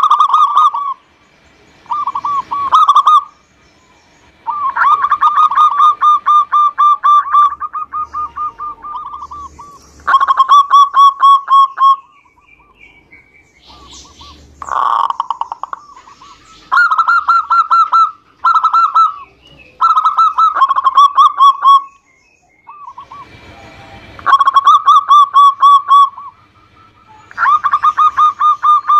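Zebra dove (perkutut) cooing: repeated bouts of rapid, trilling coo notes held at one steady pitch, with short pauses between the bouts. This is the lure song that is meant to set a quiet perkutut singing.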